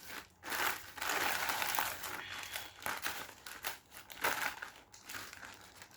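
Packaging of a large parcel crinkling and rustling as it is torn open by hand: a short rustle, a steady stretch of about two seconds, then scattered shorter crinkles.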